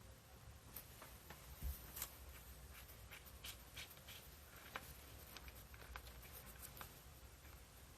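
Faint, scattered light clicks and taps of small screws and tools being handled on an open laptop, with two sharper taps about two seconds in.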